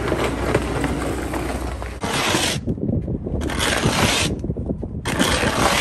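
Snow shovel scraping through about two inches of fresh snow on pavement: continuous scraping over a steady low hum for the first two seconds, then three long pushes, each under a second.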